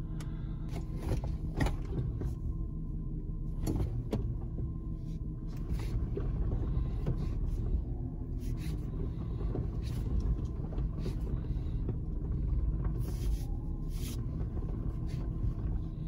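The Touareg's 3.6 VR6 engine idling, a steady low hum, with scattered light clicks.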